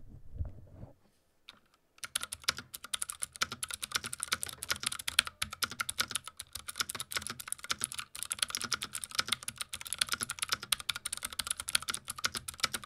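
A few low handling bumps as the microphone is set in place, then from about two seconds in fast, continuous typing on a mechanical keyboard fitted with clicky Cherry MX Blue switches, a dense run of sharp clicks and clacks close to the microphone.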